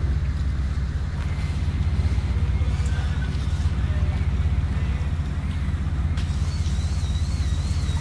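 Diesel engine of a Venetian vaporetto water bus running steadily, a low rumble under way along the canal. A thin wavering whistle-like tone comes in near the end.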